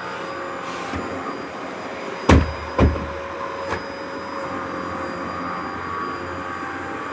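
Dyson upright vacuum cleaner running steadily, with a steady high motor tone. Two loud thumps about half a second apart come a little over two seconds in, followed by a lighter knock about a second later.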